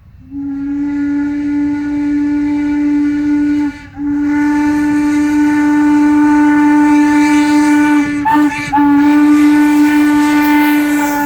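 Steam locomotive whistle blowing loudly in long blasts: a blast of about three and a half seconds, a short break, then a longer blast that dips briefly about three quarters of the way through and carries on.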